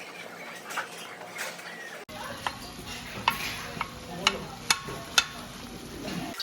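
Kitchen or table sounds: a steady hiss with a cut about two seconds in, followed by half a dozen sharp clinks of a utensil against dishes.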